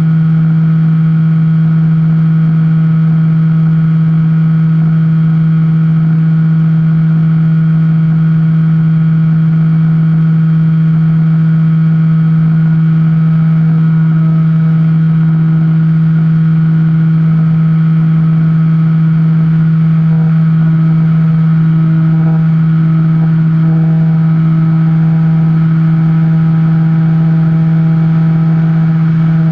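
Electric motor and propeller of an FPV Skyhunter plane running at steady throttle, heard from its onboard camera as a loud, steady hum that holds one pitch throughout.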